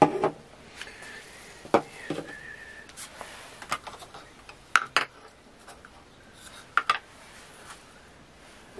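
Irregular clicks and light knocks of small plastic air-pump parts being handled and set down on a table.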